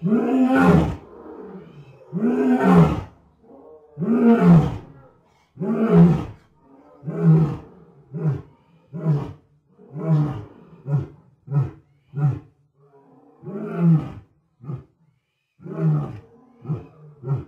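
Lion roaring: a bout of four long, deep roars about two seconds apart, trailing off into a run of shorter grunting calls that come faster and faster. After a short pause a second bout begins near the end.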